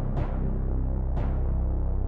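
Background music: low sustained notes with a couple of sharp accents.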